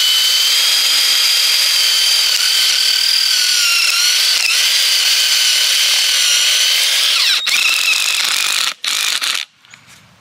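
Power drill spinning an auger-style ground anchor into the ground through a socket on its head, running at a steady whine under load. About seven seconds in it dips and runs on at a lower pitch, then stops, gives one short burst and cuts off near the end.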